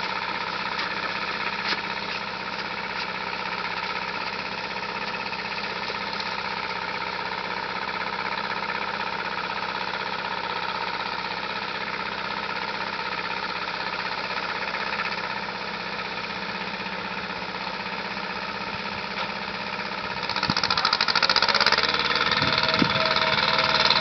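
Kubota L185DT compact tractor's diesel engine running steadily; about twenty seconds in it gets louder and its note changes as the engine is worked harder.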